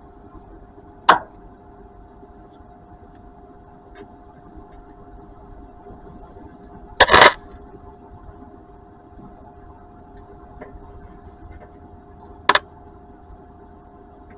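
Welder striking short arcs to tack an exhaust pipe: three brief crackling bursts, about a second in, a longer and loudest one near the middle, and a short one near the end, over a steady low hum.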